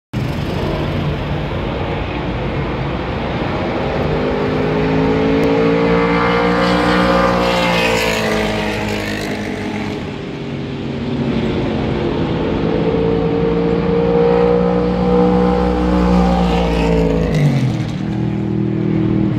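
Historic race cars running at speed on the circuit, engines rising in pitch as they come on and dropping as they pass. One goes by about eight seconds in; a second passes near the end with a sharp drop in pitch.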